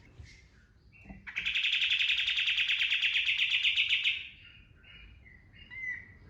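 A kapas tembak bulbul singing. Short whistled notes lead into a loud, fast trill of evenly repeated notes, about eleven a second, lasting roughly three seconds: the burst the keepers call a tembakan ('shot'). Scattered short notes follow.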